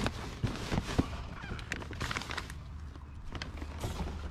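Black plastic bin bag and cardboard boxes being pulled about by hand: crackling plastic and rustling cardboard, with a couple of knocks about a second in.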